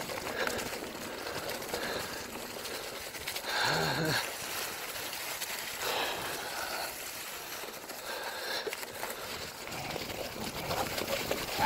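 Bicycle tyres rolling over dry fallen leaves on a dirt trail: a steady rustling, crackling noise, with a brief louder pitched sound just under four seconds in.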